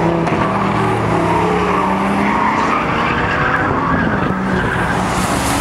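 Several sports cars lapping a racetrack together: their engine notes overlap and slide slowly up and down in pitch, with tyres squealing through the corner.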